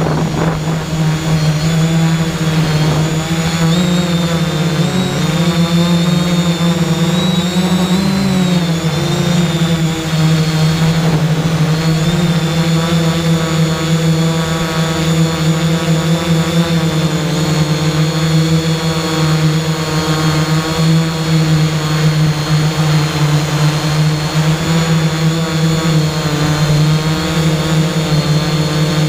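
3DR X8 octocopter's eight motors and propellers humming steadily, recorded up close from the aircraft's own camera. The pitch dips and wavers for a few seconds about four to nine seconds in, then settles.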